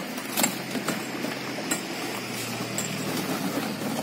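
Iron bar striking a brick wall and bricks tumbling and clinking as the wall is knocked down: a sharp knock at the start, then several more knocks over the next three seconds. A steady low engine-like hum runs underneath.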